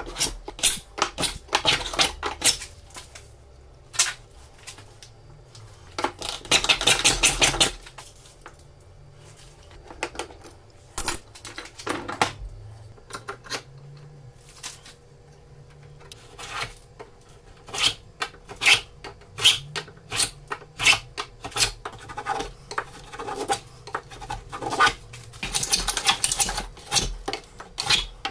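Hand tool scraping and cutting wood in the groove of a wooden plane body: many short scraping strokes and sharp clicks, with a dense run of rapid strokes about six to eight seconds in and another near the end.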